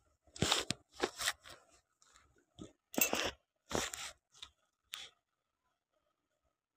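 Crinkly plastic snack wrappers crackling and rustling in about eight short, sharp bursts, which stop about five seconds in.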